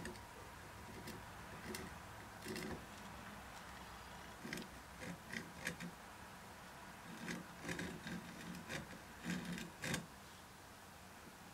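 A steel scriber scratching layout lines into marking ink on a cast iron steam engine cylinder casting, in clusters of short, irregular scraping strokes. The scriber is pressed only hard enough to cut through the marker, not into the metal.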